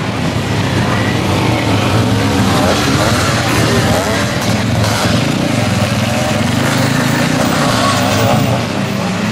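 Several motocross bikes' engines revving as they ride the track, the pitch rising and falling with the throttle, the engines overlapping throughout.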